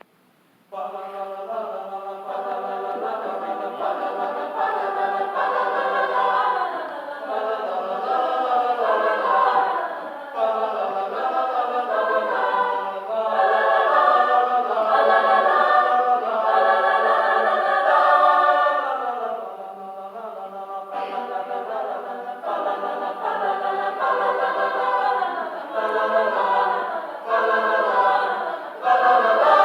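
Choir singing, starting about a second in.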